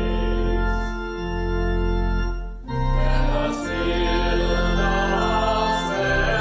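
Organ playing held chords of worship music, with a short break between phrases about two and a half seconds in.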